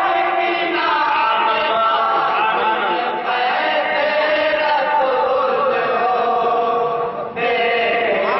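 A group of men chanting a naat together in unison, voices only, with a short break about seven seconds in before the chant comes back in full.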